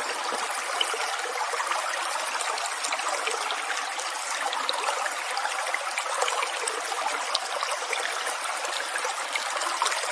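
Steady running water, an even flow with small trickling splashes throughout.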